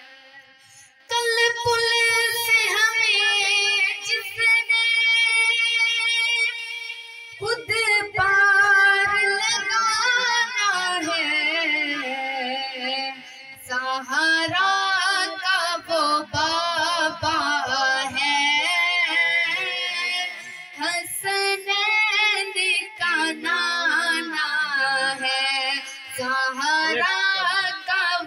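A boy's solo voice singing a naat, in long held notes with wavering, ornamented runs. The singing starts about a second in after a brief pause.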